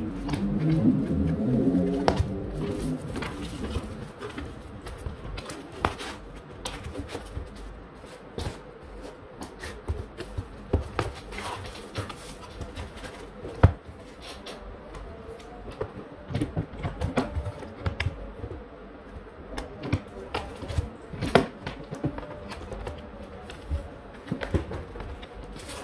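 Handling noise from cardboard boxes and packaging: scattered taps, knocks and rustles as a boxed network switch, its power adapter cable and a paper insert are moved about, with one sharper knock about halfway through. A low pitched sound with several tones stands out in the first three seconds.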